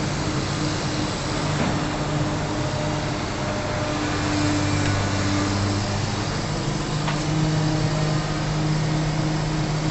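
An engine running steadily at a constant speed, an even hum with no revving.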